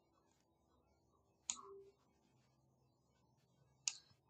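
Two sharp computer mouse clicks, about two and a half seconds apart, over near silence.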